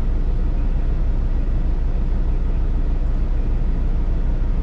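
Semi-truck's diesel engine idling steadily, a low even rumble heard from inside the cab.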